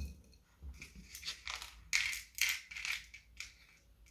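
Dry lentils and matchsticks clicking and rustling against cardboard as a matchbox is filled to make a shaker: a scatter of short, light clicks, thickest between about one and three seconds in.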